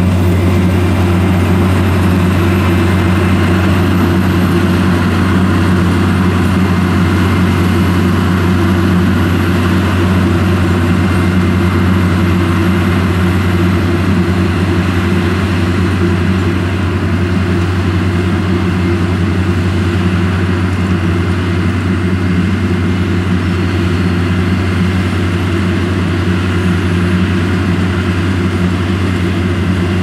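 Dewulf RA 3060 self-propelled potato harvester working, its diesel engine running at a steady loud drone with a strong low hum.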